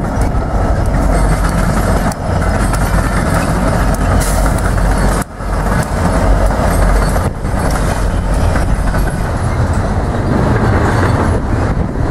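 Union Pacific diesel-electric freight locomotives and container cars passing close by, a loud steady low engine rumble mixed with wheel and rail noise.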